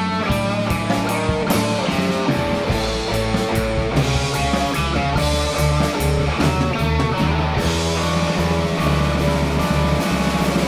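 Live blues band playing an instrumental passage without vocals: electric guitar, bass and keyboard over a drum kit keeping a steady beat.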